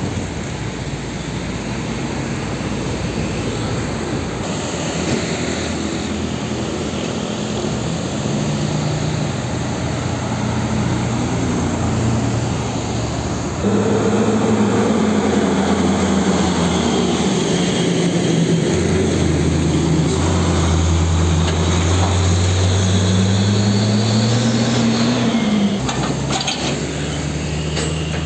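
Diesel engines of heavy trucks, tankers and a container truck, running as they drive past one after another, with road traffic behind. The engine note climbs as a truck pulls away, then drops at a gear change, and the sound switches abruptly a few times from one truck to the next.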